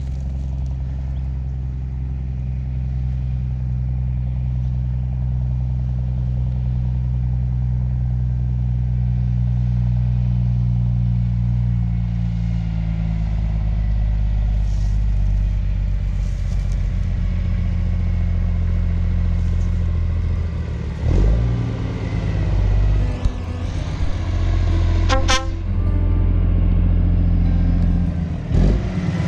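Heavy diesel engine idling steadily, its pitch shifting slightly partway through. Several short, sharp sounds come over it in the last third.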